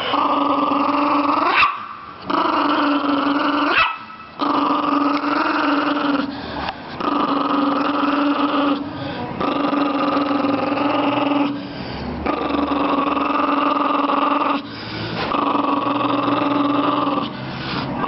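Chihuahua snarling: a string of long, steady growls, each lasting about two seconds, with short breaks between them.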